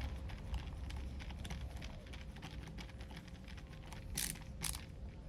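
Small irregular metal clicks and ticks of a screwdriver driving the side-plate screws into a Shimano Tiagra 130 fishing reel, with two short hissing scrapes about four seconds in.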